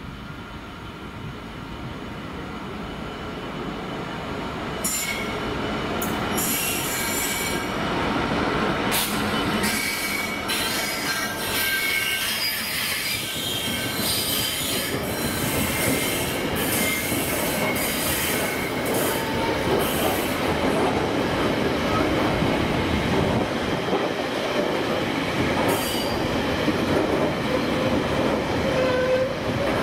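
Class 66 diesel locomotive approaching and passing with a long train of box wagons, growing louder over the first several seconds. Then the wagons roll by with a high-pitched wheel squeal and irregular clattering over the rail joints.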